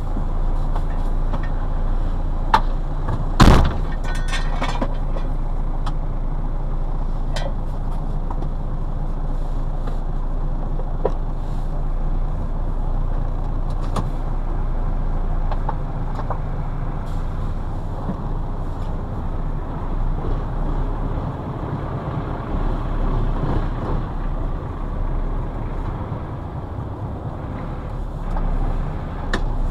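Scania 142M's 14-litre intercooled V8 diesel running steadily, heard from inside the cab. About three and a half seconds in there is one sudden loud burst with a hiss, and a few light clicks from the cab controls.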